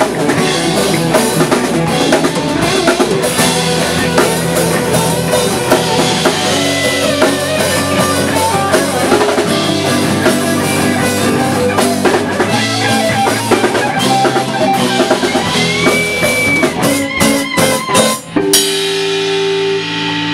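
A live rock band playing together: drum kit, electric guitar and electric bass. Near the end it hits a few sharp accents and lets a chord ring out.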